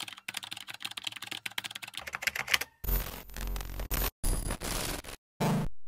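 Rapid computer keyboard typing for about three seconds. It then gives way to loud, choppy noise bursts with a deep low end that stop and start abruptly, with two short silent gaps.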